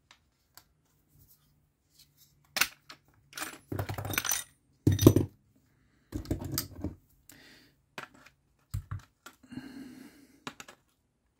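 Irregular clinks and knocks of small metal parts from a wing mirror's fold mechanism (a metal shaft, washers and a nut) being handled and set down on a desk, mixed with clicks of the plastic mechanism housing. The loudest knock comes about five seconds in.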